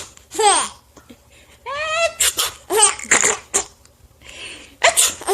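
Baby laughing in a string of short peals that fall in pitch, with one longer held squeal about two seconds in.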